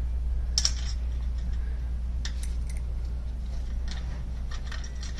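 Stainless steel lock washers and nuts clinking as they are fitted onto bolts by hand, a scatter of short, light metal clicks over a steady low hum.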